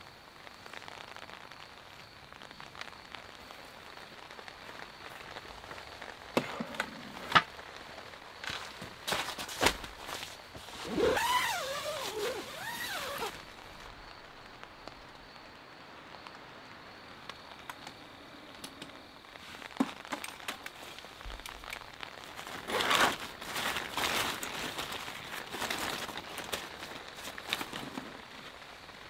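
Quiet night-time ambience with a steady hiss, broken by scattered clicks, crinkling and rustling of gear being handled. A short wavering, pitched sound comes about 11 seconds in.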